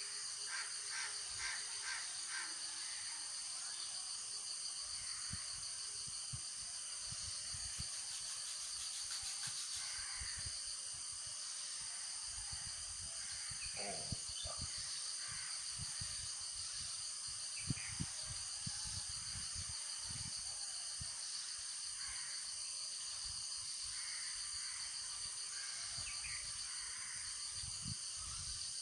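Crows cawing a few times, near the start, around the middle and near the end, over a steady high-pitched hum that never changes.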